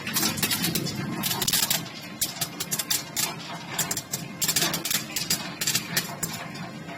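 Colour sorter machine running with camellia seeds: a dense, irregular clatter of clicks over a steady low hum.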